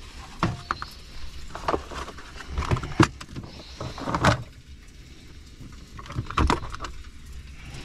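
Several sharp knocks and clattering thumps inside a truck cab, over a low steady hum.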